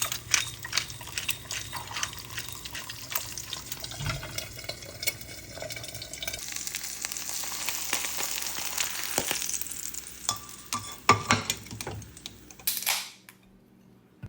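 Kitchen food-preparation sounds: utensils and dishes clicking and knocking, with a steady hiss for a few seconds in the middle, the kind made by frying or a running tap. Louder knocks come near the end, then the sound stops suddenly.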